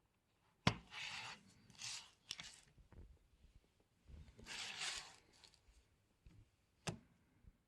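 Close handling noises: a sharp click, a few short scratchy rubbing and scraping bursts, a longer rub, then another sharp click near the end.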